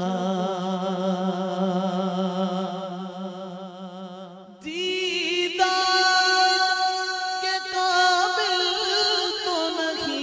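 Wordless a cappella naat singing: long held vocal notes with vibrato, no instruments. It dips and breaks off briefly about four and a half seconds in, then resumes on higher held notes.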